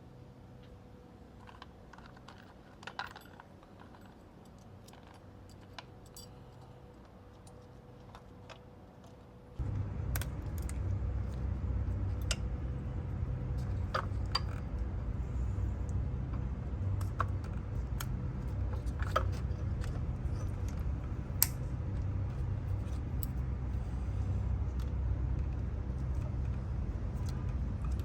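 Small metallic clicks and light rattles as fuel injectors and hand tools are handled during fitting. About a third of the way in, a steady low rumble starts abruptly and carries on under the clicks.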